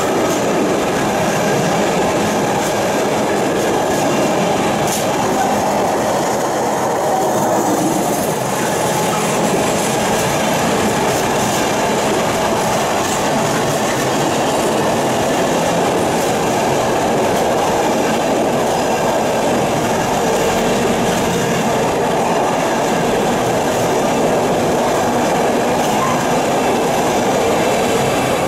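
Container freight train's flat wagons rolling past at speed, a steady loud rumble and clatter of wheels on the rails that holds unbroken as the long rake goes by.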